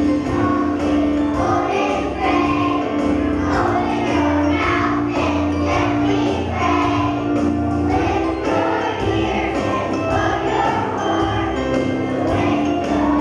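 A group of young children singing together to musical accompaniment, with a jingling sound mixed in.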